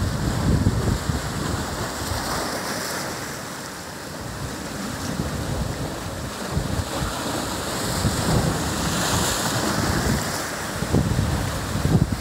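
Ocean surf breaking on a lava rock shelf and washing foamy water through shallow tide pools, with a steady hiss that swells louder about eight seconds in. Wind buffets the microphone in gusty low rumbles.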